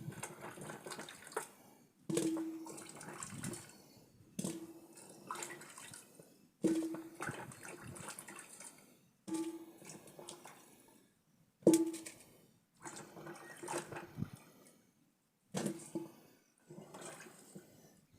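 Water splashing and sloshing in a series of short stretches of about two seconds each, every one starting and stopping abruptly.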